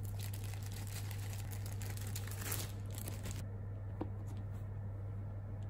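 Plastic bread bag crinkling as it is handled, stopping about three and a half seconds in; a light tap follows about a second later. A steady low hum runs underneath.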